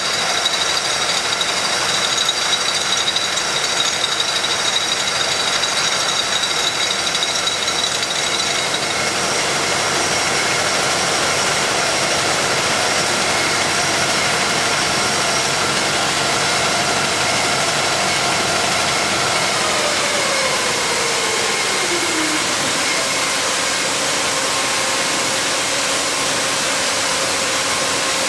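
High-speed rotary beer bottle filler running: a dense mechanical hiss and rattle with several steady whining tones. The rattle is rougher while bottles pass through in the first several seconds. About two-thirds of the way through, the whine slides down in pitch over two or three seconds as the machine slows, then holds steady at a lower pitch.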